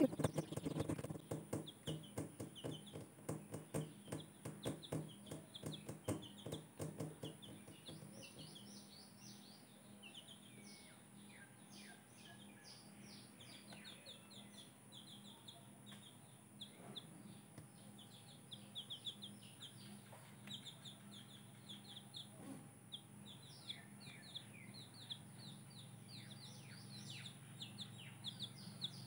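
Baby chicks peeping: a long run of faint, short, high cheeps. During the first several seconds there is also a quick series of soft low knocks.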